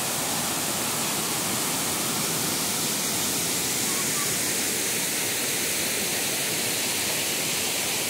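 Waterfall cascades steadily rushing as white water pours over rocks.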